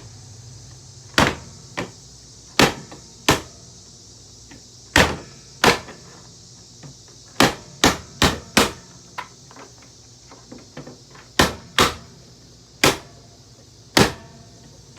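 Sharp knocks struck on a Hoover vacuum cleaner as pieces are tapped down into it, about fifteen irregularly spaced blows, some in quick runs.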